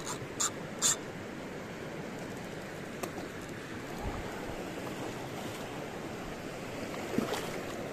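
Steady rush of river water, with a few short sharp sounds in the first second and a brief louder one near the end.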